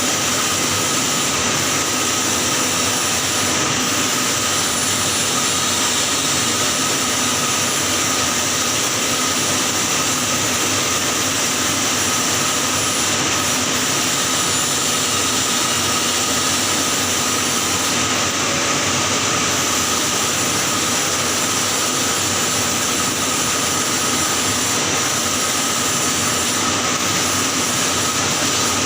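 Electric arc welding on a pipe joint in the 6G position: a steady hiss of the arc with a faint constant whine, unbroken throughout.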